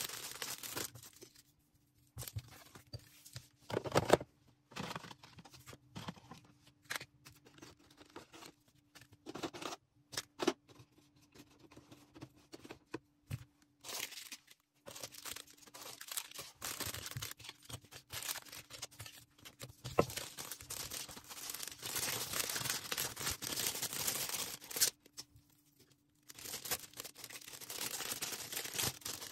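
Hands packing an order: plastic packaging rustling and crinkling in irregular bursts, with tearing sounds and sharp clicks and taps, and a short lull near the end.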